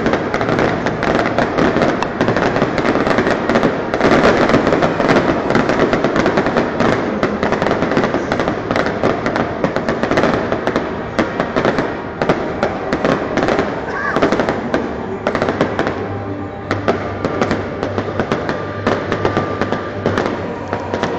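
A big aerial fireworks display: shells bursting with dense, irregular cracks, pops and bangs that overlap, busiest in the first half and thinning a little later on.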